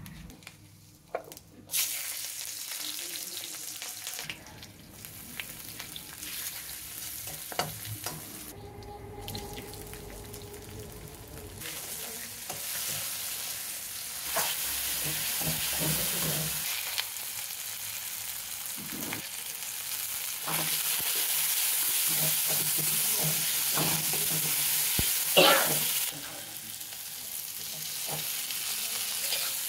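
Hot oil sizzling in an iron kadai as spices and chopped vegetables fry, with a spatula scraping and now and then knocking against the pan. The sizzling grows louder over the second half.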